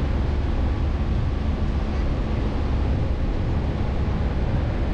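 ZR2 Bison pickup driving over soft beach sand: a steady low rumble of engine and tyres, with wind buffeting the microphone.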